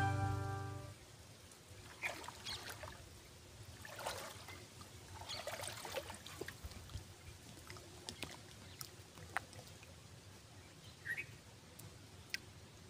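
Background music fades out in the first second. After that come faint, scattered splashes and trickles of shallow pond water around a person standing in it.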